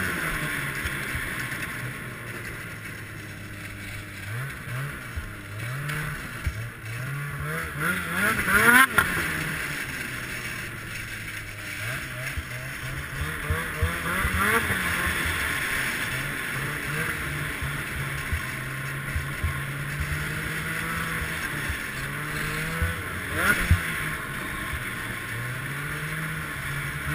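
Ski-Doo Summit X snowmobile's two-stroke engine running under way, its pitch climbing and falling again and again as the throttle is worked, with the sharpest rev-up about nine seconds in.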